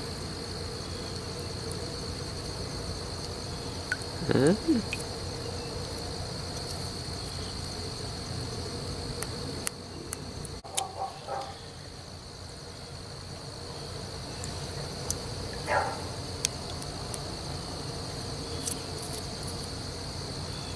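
Crickets chirping in a steady high trill, with a few faint clicks and short handling sounds from wet brick pieces being turned over in the hands.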